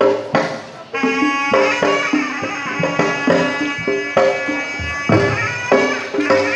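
Sundanese pencak silat accompaniment (kendang pencak): hand drums beating a quick, lively rhythm under a held, bright melody from a wind instrument such as the terompet, which comes in about a second in.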